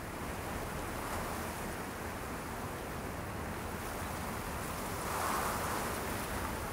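A steady rushing noise ambience that swells gently about a second in and more strongly about five seconds in.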